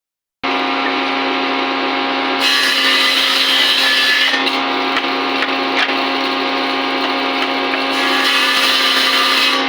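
Electric woodworking power tool running steadily with a constant motor tone. Its sound thickens into a louder rasp twice, about two and a half seconds in and again near the end, as it cuts into the wood.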